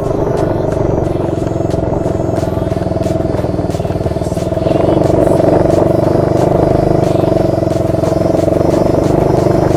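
A 125cc ATV engine running steadily while riding over rough ground, with frequent small rattles and knocks. The engine gets louder about halfway through.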